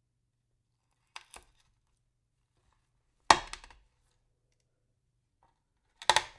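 Pills being crushed: three short, sharp crunches with silence between them. A faint double crunch comes about a second in, the loudest about three seconds in, and another near the end.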